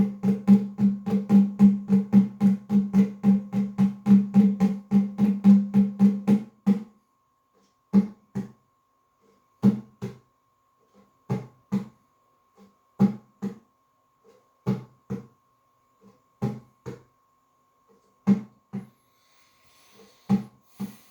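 Nyahbinghi hand drums: a fast, steady run of strokes that stops about seven seconds in, then a sparse pattern of two strokes at a time, repeating about every second and a half. A faint steady high tone runs under the sparse part.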